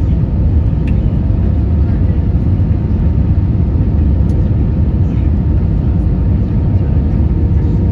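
Cabin noise inside an Airbus A320-232 on final approach with flaps extended: a steady, loud low rumble of airflow and the IAE V2500 turbofans, with a faint steady hum over it.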